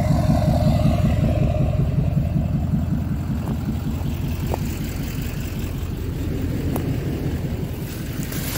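Chevrolet Silverado pickup truck's engine idling steadily: a low, even rumble of rapid exhaust pulses, growing slightly fainter toward the end.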